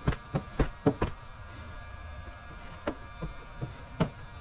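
Hand squeegee worked over wet paint protection film on a car hood, making irregular short clicks: a quick cluster in the first second, then a few more near the end.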